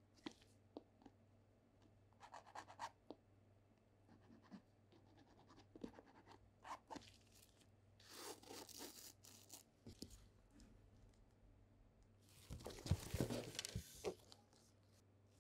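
Light taps and scratches on the grid-patterned upper of a Union LA Nike Dunk Low sneaker, then a bristle brush rubbing across the fabric about eight seconds in. Near the end, louder rustling and a few low knocks as the pair is handled.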